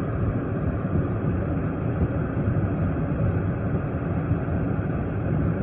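Steady low rumble inside a stationary police car.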